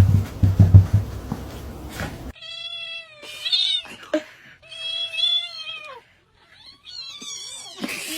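A cat meowing: three long, drawn-out meows, each bending in pitch, after a couple of seconds of low thumping and rumbling.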